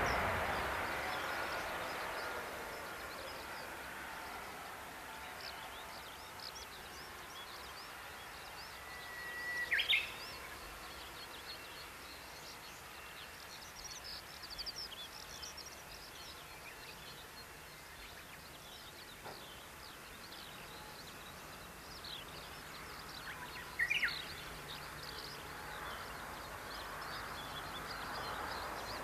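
The engines of a Boeing 787-8 (Rolls-Royce Trent 1000 turbofans) die away as the airliner slows after landing, leaving quiet outdoor background with birds chirping. Twice, about ten seconds in and again near twenty-four seconds, a bird gives a louder call: a held whistle that ends in a quick upward flourish. Near the end a faint jet whine grows again as the plane taxis.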